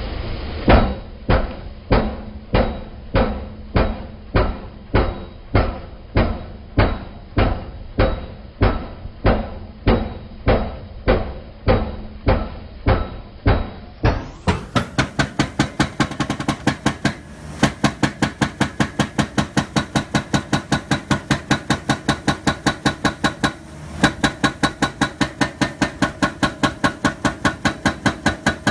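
Repeated heavy mechanical hammering: evenly spaced strikes about two a second, changing about halfway through to a faster run of about five strikes a second.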